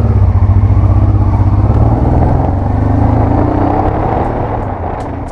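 Honda Transalp motorcycle engine running steadily, with a rise in engine pitch around the middle, dropping in level toward the end.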